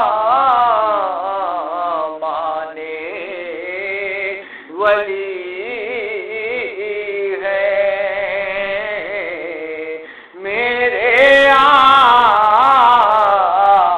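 A man singing an Urdu devotional salam in long, wavering, drawn-out notes, pausing briefly between phrases about five and ten seconds in.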